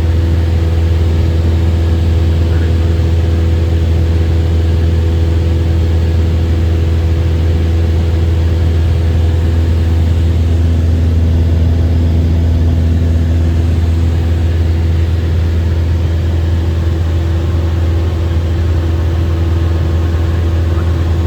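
Light airplane's engine and propeller droning steadily in level cruise, heard inside the cabin: a deep, even hum with a few steady higher tones over it.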